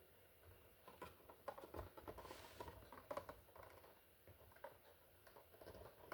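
Faint small clicks and taps from a cockatiel's beak as it drinks juice, clustered in the first half and thinning out after about three and a half seconds.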